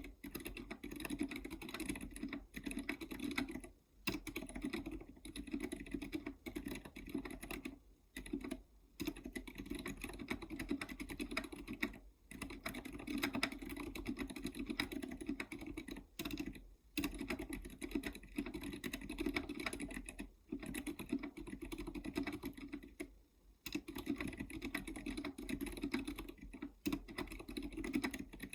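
Continuous typing on a KBDfans GK64 mechanical keyboard with Zilent v2 67g silent tactile switches, and Cherry MX Silent Black switches on the larger keys: a steady stream of keystrokes, broken by brief pauses every few seconds.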